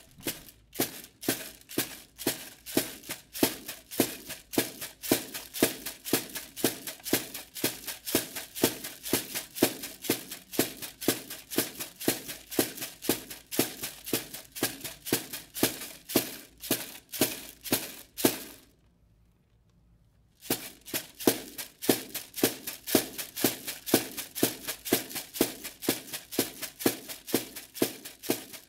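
A rattle shaken in a steady beat, about two to three strokes a second. It stops for about two seconds partway through, then starts again.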